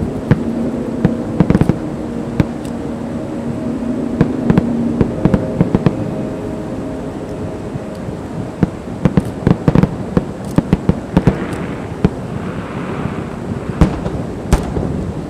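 Fireworks going off: a continuous low rumble of bursts, punctuated by many sharp bangs that come thick and fast about nine to eleven seconds in.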